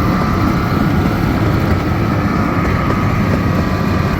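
Miniature park train running steadily: a constant low rumble with a thin steady whine over it.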